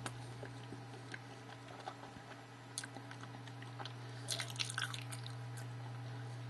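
Close mouth sounds of someone chewing a chocolate-coated profiterole: faint wet clicks and smacks, thickest about four to five seconds in, over a steady low hum.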